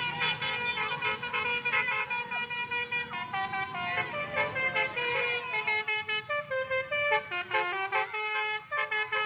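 Telolet multi-tone air horn on a pickup truck playing a tune: several horn notes held together and stepping from one pitch to the next every fraction of a second.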